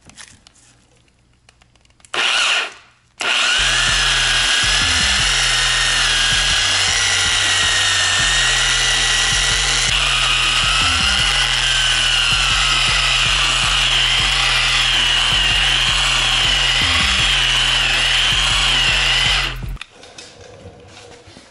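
Harbor Freight dual-action polisher with a 3-inch microfiber cutting pad, compounding a scratch out of a car door's clear coat: a short run about two seconds in, then a steady run for about sixteen seconds, its whine wavering slightly in pitch, stopping near the end.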